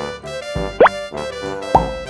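Electronic children's jingle from a battery-operated toy school bus: a keyboard-like melody with two quick, loud rising bloop sounds, just under a second in and near the end, set off by pressing the bus's stop-sign button.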